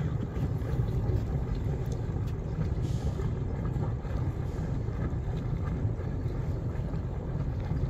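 Twin MerCruiser 6.2 V8 engines of a Cruisers 340 Express idling with a steady low rumble as the cruiser eases into its slip at slow speed, with some wind noise on the microphone.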